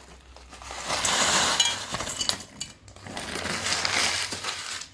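Rock sugar pieces and small onions being tipped into a mixer-grinder jar, clinking and rattling against the jar in two bouts.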